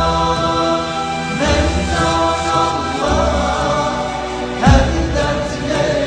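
Background music with choir-like voices over deep held chords that change about every second and a half, with a sudden loud hit about three-quarters of the way through.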